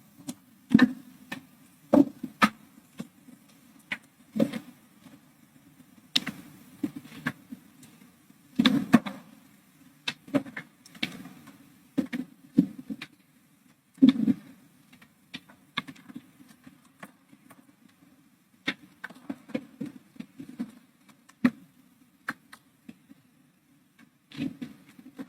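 Irregular clicks, knocks and rustles of papers being handled at a desk near a microphone, as pages are leafed through to find a reference, over a faint low room hum.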